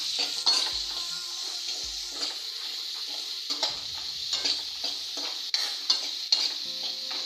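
A metal spoon stirring and breaking up boiled potato pieces in a metal kadhai while they fry in ghee: a steady sizzle with frequent scrapes and clinks of the spoon against the pan.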